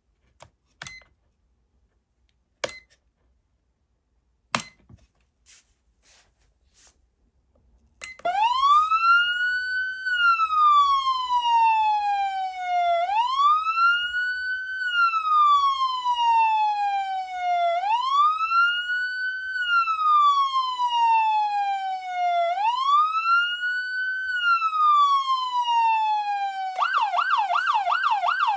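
A few sharp clicks, then a SoundOff Signal nERGY 400 electronic siren amplifier sounding a wail tone: a slow rise in pitch over about two seconds and a fall over about three, repeated four times. Near the end it switches to a fast yelp.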